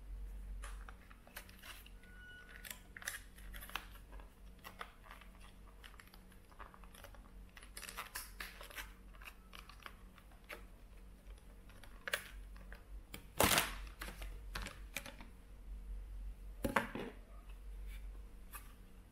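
Rigid clear plastic clamshell packaging being handled and pried open: scattered clicks, crackles and crinkling, with a louder sharp crack about two-thirds of the way through.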